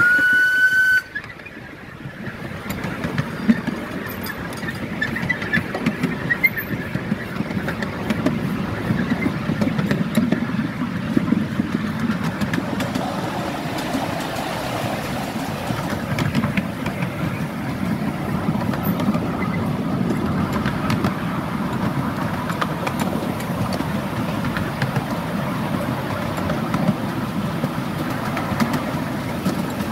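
Ride-on miniature steam locomotive sounding its whistle once, a loud steady note about a second long, then running along the track with a steady clattering noise of wheels on the rails.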